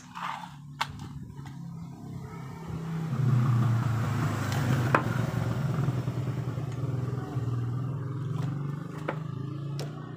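A motor vehicle engine running, a steady low hum that grows louder about three seconds in and slowly eases off. Several sharp clicks of wires and a plug being handled sound over it.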